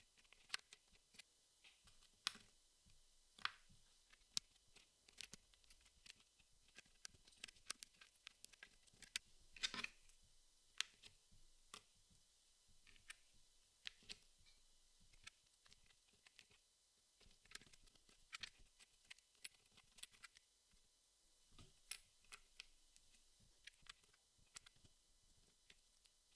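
Puzzle pieces being handled and fitted together: light clicks and taps at irregular intervals, with a brief rustle about ten seconds in.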